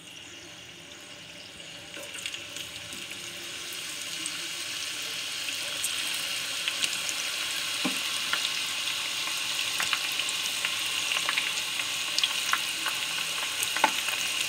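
Raw banana slices frying in hot olive oil. The steady sizzle grows louder over the first few seconds as more slices go into the pan, with scattered sharp pops.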